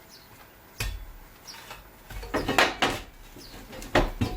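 Sharp metal clanks and clinks of tools and bolts against a steel pedestal as it is being bolted down: one knock about a second in, a cluster around two and a half seconds, and two more near the end.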